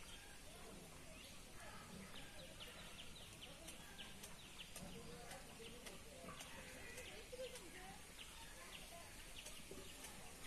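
Faint outdoor ambience of small birds chirping in many short, quick notes at irregular intervals.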